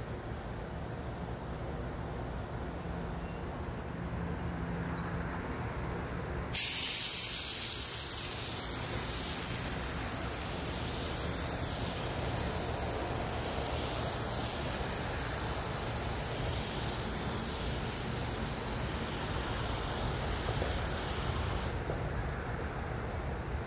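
Water spraying from a nozzle: it starts suddenly about six seconds in with a short rising whistle, then runs as a steady hiss that wavers as the spray moves, and cuts off a couple of seconds before the end. Before it comes on there is only faint outdoor background noise.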